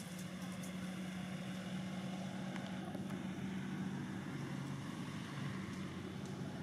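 Steady low hum of an engine running, dropping a little in pitch about halfway through.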